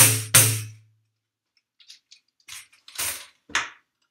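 Headed tambourine struck by hand: the last two beats of an even rhythm, about three hits a second, each with a low drum thud and ringing jingles, the last ringing out for about half a second. Later, from about two and a half seconds in, a few soft knocks and jingle rattles as the tambourine is set down.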